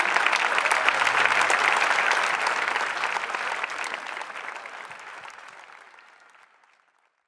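Audience applauding, the clapping fading out to silence over the last few seconds.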